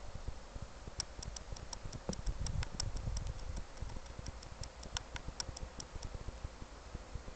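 Wind buffeting the microphone with a low rumble, and a run of short high-pitched ticks or chirps, about three or four a second, starting about a second in and stopping near the end.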